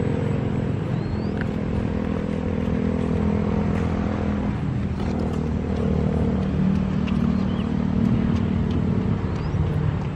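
Radio-controlled seaplane's motor and propeller running steadily in flight, its pitch rising and falling a little with the throttle.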